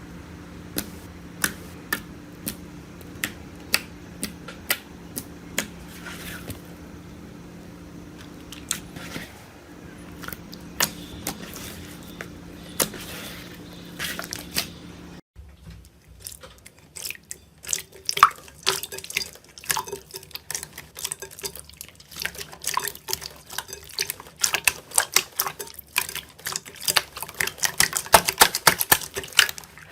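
Slime being handled, giving sharp clicking pops. For the first half they come spaced out, about one every second, over a low steady hum; after a cut about halfway they turn into a denser, crackling run of pops that grows busier and louder toward the end.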